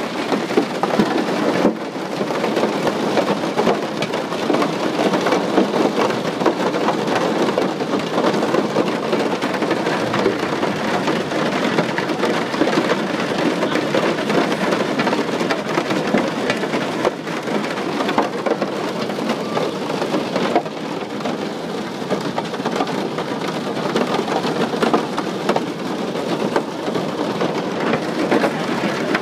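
Large hail striking the airliner's fuselage and windows, heard from inside the cabin: a dense, continuous clatter of countless small impacts.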